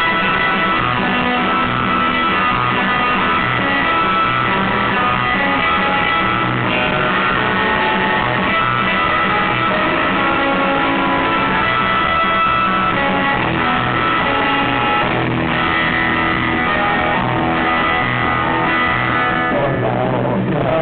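A live surf rock band playing loud and steady, led by an electric guitar, a Fender Stratocaster.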